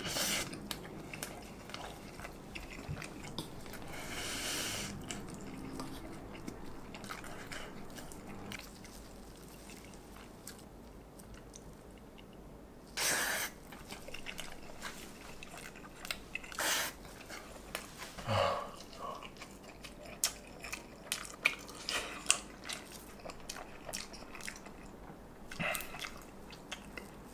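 Crisp, butter-toasted bread crackling and crunching in short bursts as a cheese-filled egg toast sandwich is torn apart and handled by hand, with a run of sharp little crackles a little past the middle.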